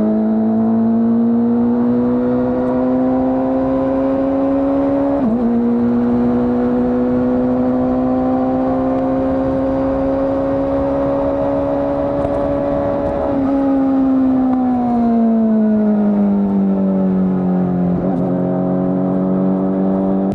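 Honda CBR600RR inline-four engine with its stock exhaust, heard on the move with wind rush. The engine note climbs steadily, drops at an upshift about five seconds in, and climbs again. Past the middle it falls away as the throttle is eased off, then holds steady.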